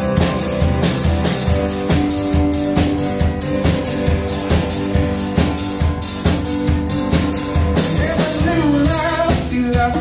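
Rock band playing live: a drum kit keeps a steady beat under electric guitar, bass guitar and a Roland FP-4 digital piano.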